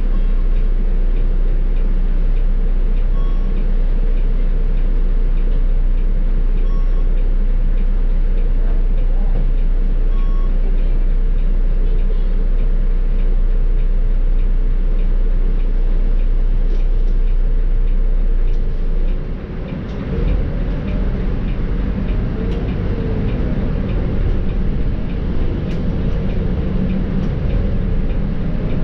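Volvo B7R bus with ZF EcoLife automatic heard from inside the cabin while driving: steady diesel engine drone and road rumble with light rattles. About two-thirds of the way through the deep drone drops away and the engine note changes.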